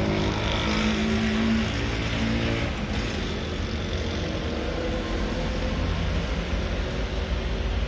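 Steady hum of a car with its engine running, heard inside the cabin.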